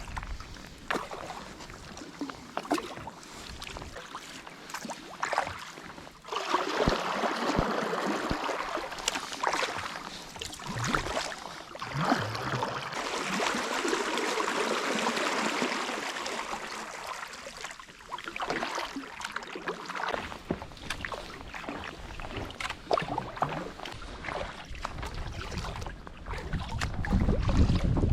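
A kayak being paddled: the paddle blades dip and splash irregularly and water washes against the hull, with a louder, steadier wash of water in the middle stretch. Low wind rumble on the microphone near the end.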